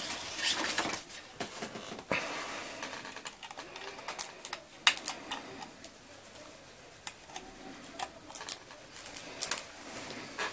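Handling noise from a small plastic TV box: scattered light clicks and taps as its antenna is screwed on and cables are plugged in, with rustling near the start and again about two seconds in.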